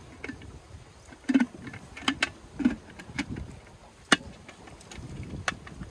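A string of irregular sharp plastic clicks and taps as an underwater dome-port camera housing is handled and clipped together, over a low background rumble.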